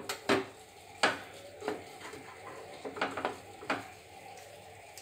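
Kitchen utensils knocking against cookware: a wooden slotted spatula scooping sugar-syrup-soaked sweets in an aluminium pot. Several sharp, irregular clacks and knocks come over the few seconds.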